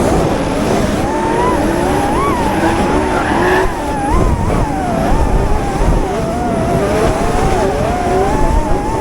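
Drift car engine held at high revs, its pitch wavering up and down continuously over a steady rush of tyre and engine noise.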